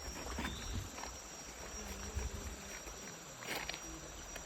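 Steady high-pitched insect drone with a low rumble underneath and a few short splashes or knocks, the strongest about three and a half seconds in.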